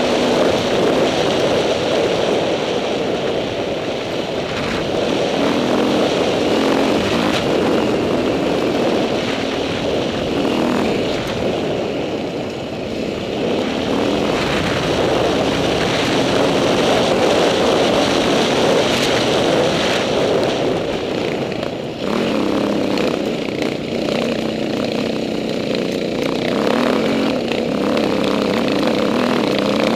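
Dirt bike engine running hard on a trail ride, its pitch rising and falling as the rider works the throttle and gears, with a short drop in level about two-thirds of the way through.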